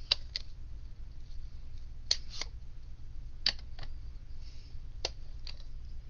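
Plastic Stampin' Up! ink pad cases being handled and snapped open on the desk: about eight sharp clicks, mostly in close pairs, spread over several seconds.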